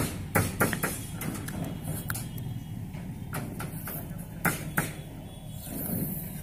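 Tape being pulled off its roll and wrapped around a plastic circular junction box: a string of short, sharp crackles and clicks with handling of the plastic box.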